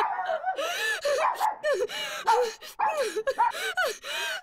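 A woman sobbing and wailing in grief, in short broken cries that rise and fall in pitch, with gasps between them.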